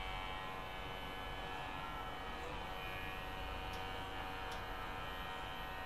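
Electric pet hair clipper running with a steady hum as it shaves the fur on a cat's neck.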